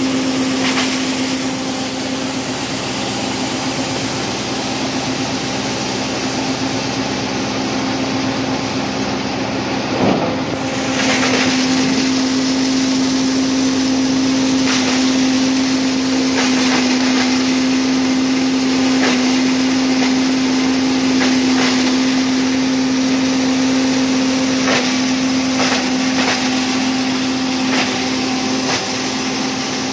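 Old communist-era maize grinding mill running steadily with a constant hum and a rasping grind as whole corn cobs are fed in. Occasional sharp knocks, the loudest about ten seconds in.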